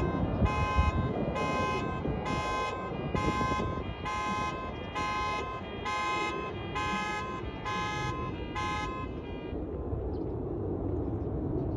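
Electronic alarm beeping in an even pulse, about one and a half beeps a second, stopping about nine seconds in. Underneath is the steady distant rumble of the F-16's jet engine.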